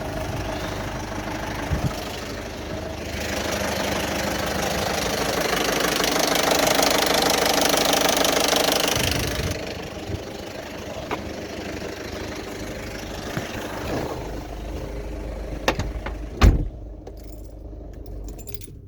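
Citroën Berlingo 1.6 HDi four-cylinder diesel engine running with a loud mechanical clatter, which the owner likens to a bag of spanners. It is revved for several seconds, from about three seconds in to about nine, then drops back to idle. A sharp thump comes near the end. The owner links the noise to low oil pressure after a new turbo and service, and presumes a blockage such as clogged filters.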